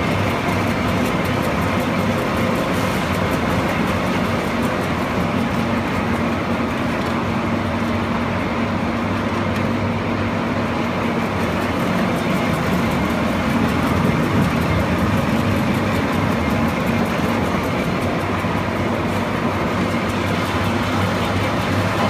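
KHL-400 ring die organic fertilizer granulator running: a steady mechanical hum with low tones that holds even throughout.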